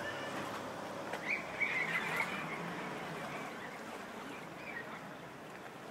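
Outdoor town ambience recorded on a walk: a steady background wash of sound, with a few brief high chirps or calls about a second and a half in.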